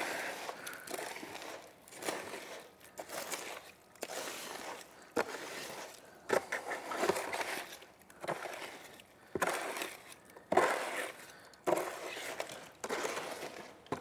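Hand stirring wet concrete mix in a plastic mixing tub: gritty scraping and sloshing strokes about once a second, with a few sharper knocks against the tub. The mix has been made too wet, soupy.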